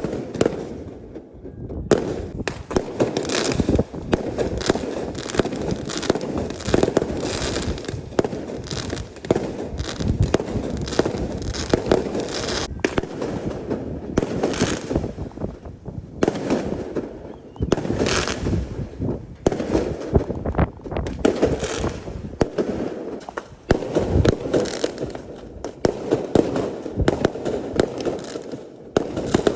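Fireworks going off in quick succession: a continuous run of bangs and pops, broken every second or two by spells of crackling.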